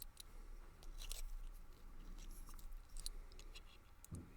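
Faint, scattered clicks and rustles of a brass padlock's small parts and lock-picking tools being handled while the lock is taken up for reassembly.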